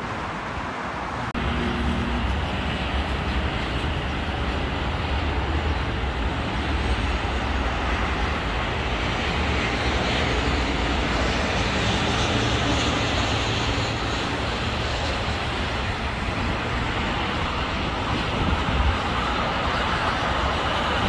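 Steady roar of a jet airliner's engines on landing approach, mixed with road traffic noise; the level jumps abruptly about a second in.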